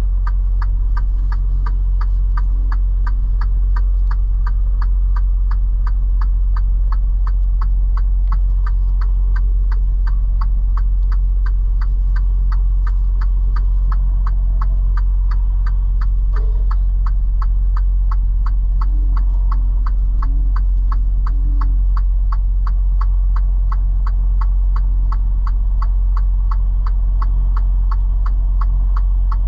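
Semi-truck diesel engine running at low speed, heard inside the cab as a steady low drone, with the flasher relay ticking evenly about two to three times a second.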